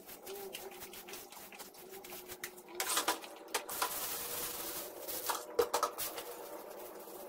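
Housework handling noises: scattered clicks and knocks, with louder rustling about three and about five and a half seconds in, as rubbish and the bin are handled.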